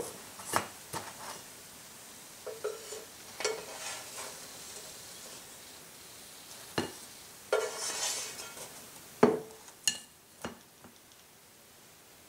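Kitchen utensils knocking, clinking and scraping against a pan or dishes in scattered strokes, with a longer scrape about eight seconds in.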